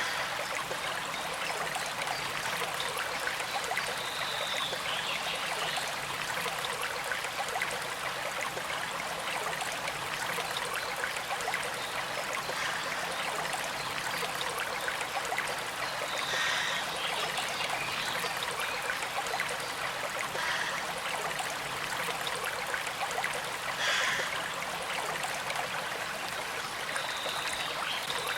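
Gentle creek flowing steadily, a continuous trickle and rush of water, with a few brief higher-pitched accents scattered through it.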